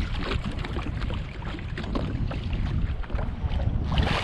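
Wind buffeting the microphone over water slapping and lapping against a small aluminum boat's hull, with a brief louder splash near the end.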